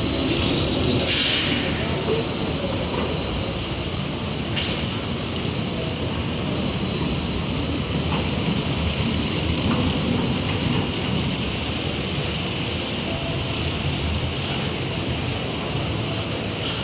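Steady rain on wet pavement, with the low rumble of a city tram passing. A brief loud hiss comes about a second in, and a sharp click a few seconds later.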